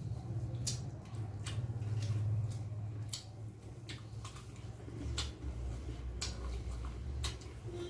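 Close-miked eating sounds: wet chewing and lip-smacking clicks, irregular, about once or twice a second, over a steady low hum.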